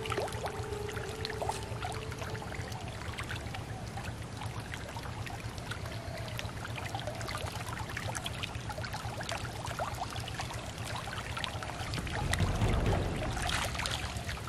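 Pond water lapping with many small splashes around a hoop lift net held under the surface, then a louder rush of water pouring and dripping off the net as it is lifted out near the end.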